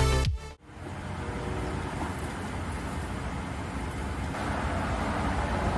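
Road traffic: a steady rush of cars passing on a major road. Electronic dance music cuts off in the first half second before it.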